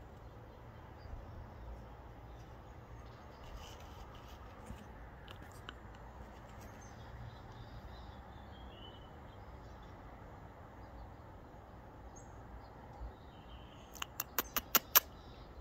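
Quiet outdoor background with a steady low hum and a few faint, short bird chirps. Near the end, a quick run of about six sharp clicks in roughly a second, each louder than the last.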